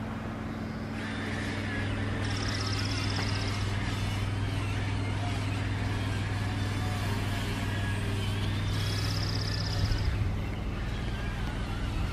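A steady low motor hum throughout, with two short high-pitched trills, one a couple of seconds in and one about nine seconds in.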